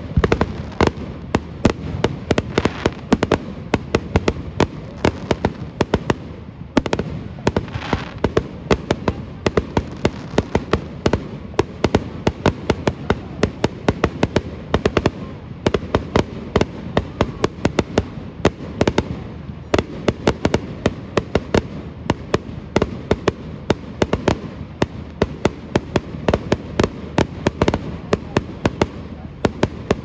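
Fireworks display: aerial shells bursting in a rapid, unbroken string of bangs and crackling reports, several a second.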